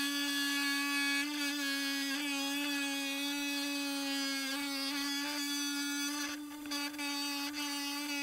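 10-inch Hi Tech Diamond lapidary saw with a thin sintered diamond blade cutting through a septarian nodule fed by hand: a steady, even-pitched hum with a slight wobble in level partway through.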